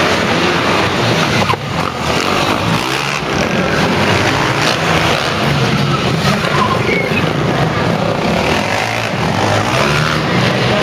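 Several motocross bikes revving and running at once, engines rising and falling in pitch as the riders take the ramps, inside a large arena hall.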